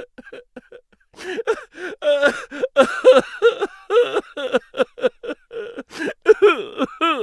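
A high-pitched voice making a fast run of short sounds, about three or four a second, growing busier about a second in.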